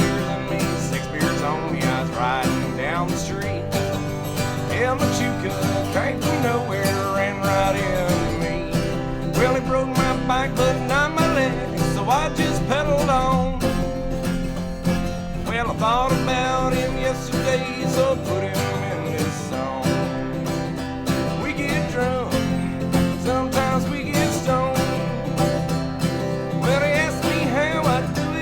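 Country song played on acoustic guitar, an instrumental stretch with no singing recognised.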